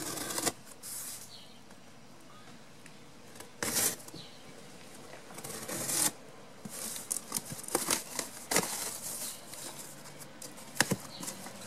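Cardboard shipping box being torn open by hand: packing tape and cardboard ripping in a series of short tears, with rustling and scraping of the flaps between them.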